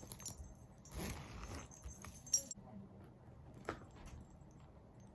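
Small metal pieces jingling and clinking, with rustling, as a handbag and its contents are handled. The jingling stops about two and a half seconds in, leaving a couple of faint clicks.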